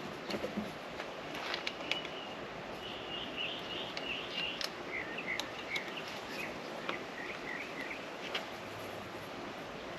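A bird chirping in a run of short calls over a steady background hiss, with scattered light clicks of hand tools working on bolts.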